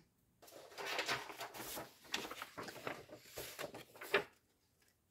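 Sheets of kraft paper being slid into place and handled: a run of paper rustles and sliding scrapes that stops about four seconds in.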